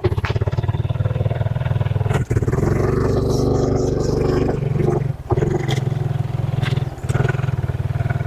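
Motorcycle engine running steadily while riding, with brief dips in engine level about two and five seconds in.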